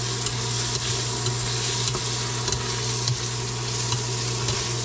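Ground pork, pork cubes and sliced Vienna sausage sizzling steadily in a stainless steel pot while being stirred with a spatula, with a few faint light ticks of the spatula against the pot and a steady low hum underneath.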